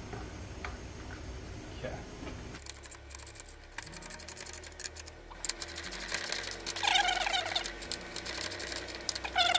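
One-handed trigger bar clamps being squeezed tight around a wooden fence face, their ratchets clicking in quick runs from a few seconds in.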